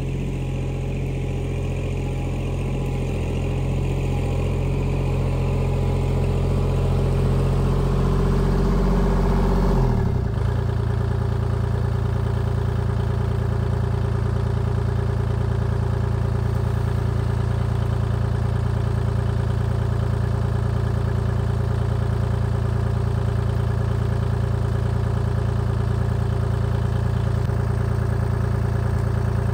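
Kubota tractor's diesel engine running, growing louder over the first ten seconds, then changing pitch abruptly about ten seconds in and running steadily after that.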